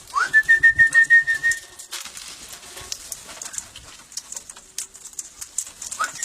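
A high whistled call that sweeps up, then holds one pitch with a rapid flutter for about two seconds, starting again near the end, among parrots being hand-fed.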